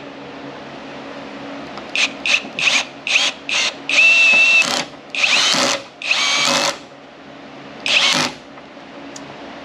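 Electric drill driving a formula-car quick lift, raising the car off its stands. It runs in about five quick trigger bursts, then four longer runs of about half a second each, its whine wavering in pitch under load.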